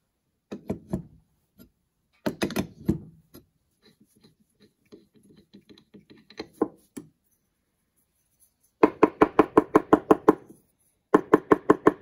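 A few scattered clicks and clunks of parts being handled, then rapid, even knocking in bursts of about eight knocks a second over the last few seconds: a carburetor part being tapped against the bench to shake out fuel and dirt.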